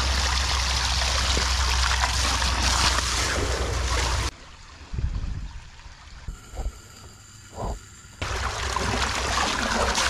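Pond-vacuum pump water gushing out of a corrugated outlet hose into a mesh filter basket, a steady splashing rush with a low rumble. About four seconds in it gives way to a few quieter seconds with a few soft knocks and splashes, then the gushing returns near the end.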